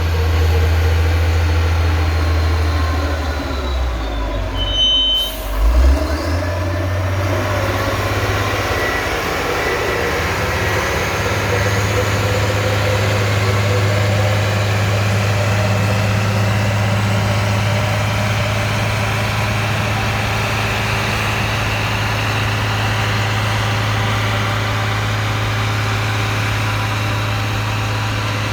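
Cat 966 wheel loader's diesel engine running steadily under load while packing corn silage. Its pitch shifts about five seconds in, then climbs slowly over the next several seconds.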